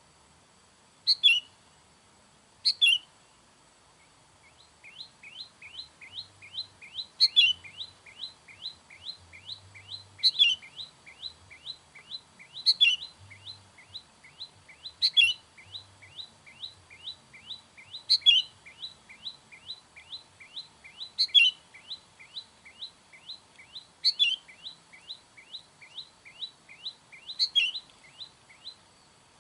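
Sooty-headed bulbul calls: a loud, short, falling call repeated every two and a half to three seconds. From about four seconds in, a fast run of short chirps at about four a second joins it and carries on. This is bulbul sound used to lure wild bulbuls.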